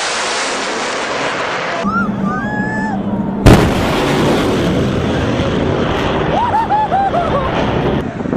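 A fighter jet's rushing noise on a fast low pass. Then, about three and a half seconds in, a single sharp, very loud sonic boom, followed by the jet's continuing rumble and voices calling out.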